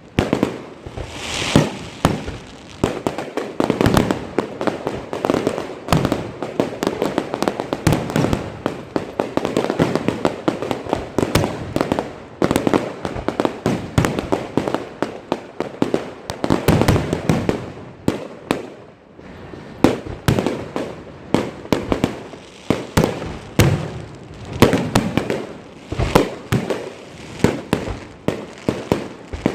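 Fireworks going off in a rapid, irregular barrage of bangs and pops, several a second, each with a short echo after it, easing briefly about two-thirds of the way through before picking up again.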